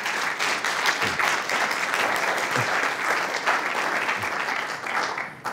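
Audience applauding: many hands clapping steadily, dying away near the end.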